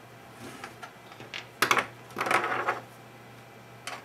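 Small metal screws clinking as they are unscrewed by hand from a VGA connector on a metal board housing: a sharp clink about one and a half seconds in, then a short clatter and a smaller click near the end, over a faint steady hum.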